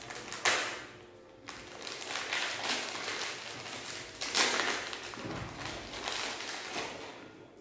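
Plastic sweet wrapper crinkling as it is peeled open by hand, in irregular rustling bursts, loudest about half a second in and again at about four and a half seconds.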